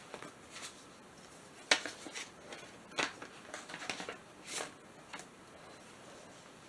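Paper and plastic packaging being handled: a run of short crinkles and clicks, the sharpest about a second and a half in and at three seconds, dying away after about five seconds.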